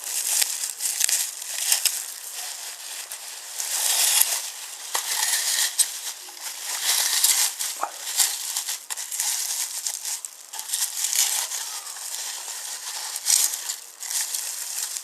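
Wrapping being crinkled and crumpled as it is pulled off a wooden toy train station, an uneven crackling with many small clicks that swells and fades.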